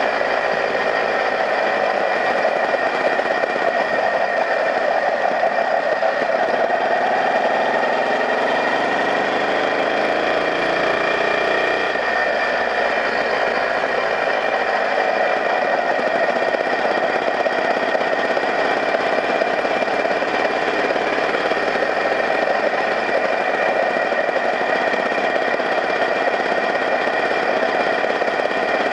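Small motorbike engine running steadily under way, its pitch rising for a few seconds about six seconds in.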